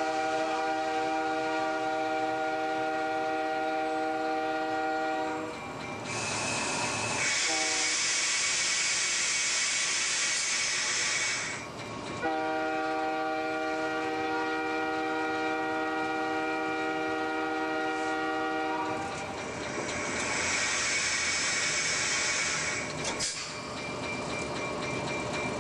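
F40PH-2 diesel locomotive's multi-chime air horn heard from inside the cab: a long blast, a brief short toot, then a second long blast of about seven seconds, sounded for a grade crossing ahead. A loud hiss fills the gaps between the blasts.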